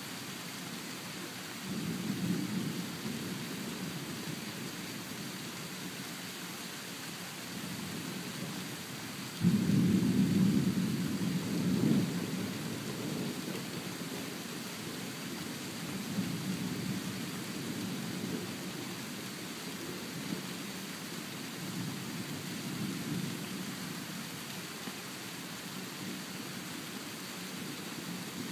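Thunder rolling in several low rumbles over a steady hiss, with one sudden, loudest clap about ten seconds in that rumbles on for about three seconds.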